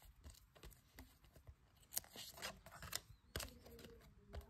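Faint sliding and clicking of stiff chrome-coated trading cards being flipped one by one from the front of a hand-held stack to the back, with a few sharper clicks as card edges snap together.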